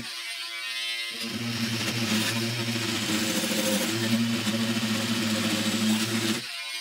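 Oscillating multi-tool (renovator) running and sawing through the wooden handle of an old Finnish knife, a steady buzzing hum. The hum thins out briefly at the start and stops shortly before the end.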